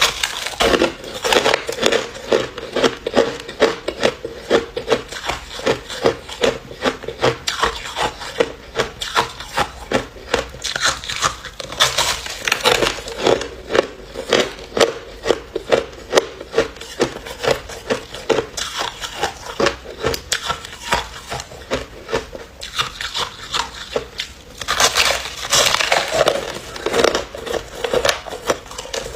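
Ice being crunched and chewed: a steady run of sharp cracks several times a second, with louder, denser crunching about twelve seconds in and again near twenty-five seconds in.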